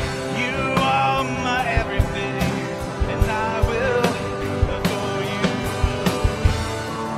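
Live worship band playing a rock-style song: an electric guitar, a Fender Telecaster, over a steady drum-kit beat, with a sung vocal line in places.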